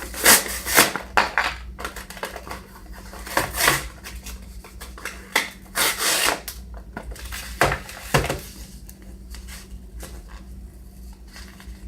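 Packaging being opened by hand: an irregular run of rustling, crinkling and tearing noises, busiest in the first eight seconds and fainter after that.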